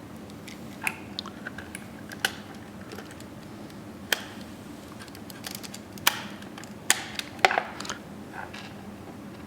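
Irregular sharp clicks and taps of the hard plastic turn-signal housing parts being handled and fitted back together, with a quick cluster of louder clicks about six to eight seconds in.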